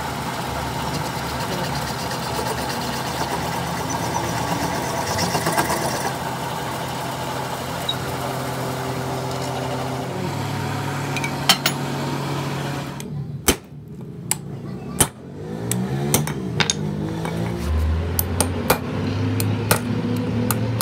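Metal lathe running with a generator crankshaft spinning in its chuck, a steady hum. After a cut, sharp metallic clicks and taps as pliers and steel parts are handled on a concrete floor.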